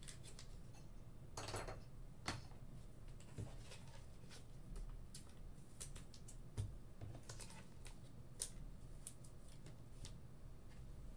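Faint, scattered clicks and taps of trading cards and clear plastic card holders being handled on a desk, with a short rustle about a second and a half in.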